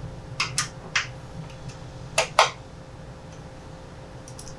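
Small metallic clicks and taps from a screwdriver and a short steel bolt as the bolt is fitted into the fuel-cap mounting ring of a motorcycle tank. Three light clicks come in the first second and two louder ones a little after two seconds, over a low steady hum.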